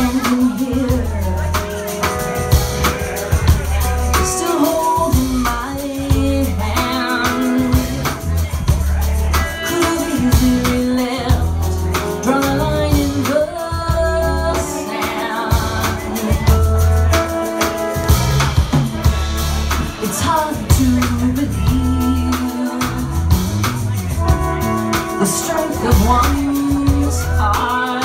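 A live band playing: a woman singing lead over a drum kit and electric guitar, with a steady beat and heavy bass notes.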